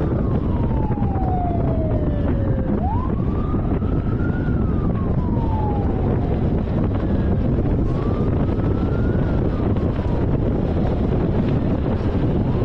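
Police car siren wailing, its pitch rising and falling slowly about three times before fading out near the end, over the steady road and wind rumble of a moving car.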